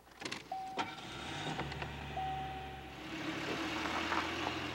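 Ford Tempo car driving past close by: engine and tyre noise builds from about a second in, is loudest near the end, then starts to fade. A few clicks come near the start, with two short steady high tones, one about half a second in and a longer one about two seconds in.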